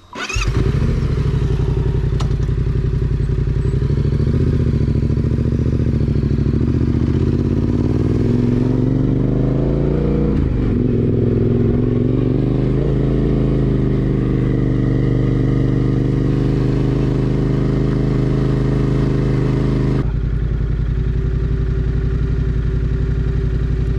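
Yamaha Tenere 700's parallel-twin engine starting up about half a second in, then running steadily. Its pitch rises and dips briefly around the middle.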